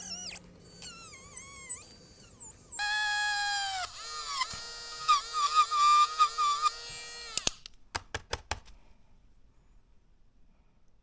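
Small electric drill with a 3 mm bit whining as it drills a plastic Mini 4WD chassis, its pitch sagging and recovering as the bit bites. The drill stops about seven and a half seconds in, followed by a few sharp clicks.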